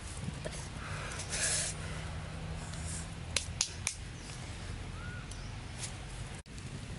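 Small twig fire burning under a flat stone slab, with a brief rustle about a second and a half in as the slab is settled, then three sharp snaps in quick succession about halfway through.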